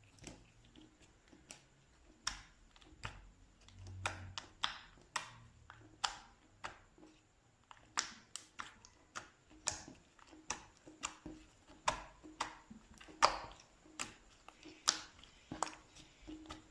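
Slime pressed and squeezed by fingers, giving a string of sharp clicking pops at an uneven pace, about one to two a second.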